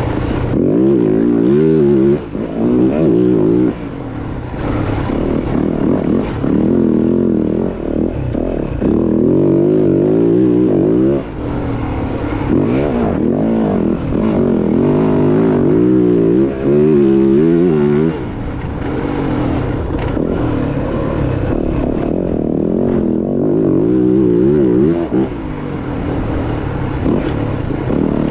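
Dirt bike engine being ridden hard, its revs rising and falling every second or so as the throttle is worked, with a few brief dips where the throttle is shut off.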